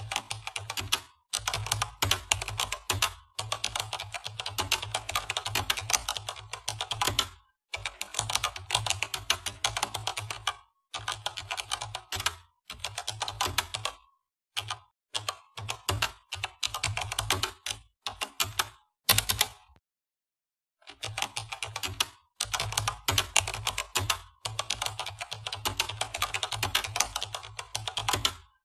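Computer keyboard typing sound effect: rapid key clicks in runs of a few seconds, broken by short pauses, the longest about a second long about two-thirds through.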